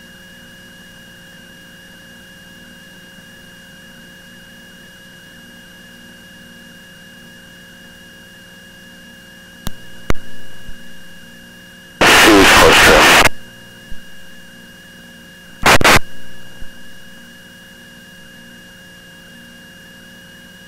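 Aircraft radio/intercom feed: a steady electrical hum with a few faint fixed whine tones. A little before halfway there are clicks, then two loud harsh bursts of radio noise, the first over a second long and the second brief.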